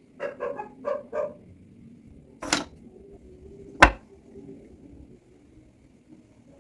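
A dog barks four quick times, followed by a brief scraping burst and a single sharp knock, the loudest sound.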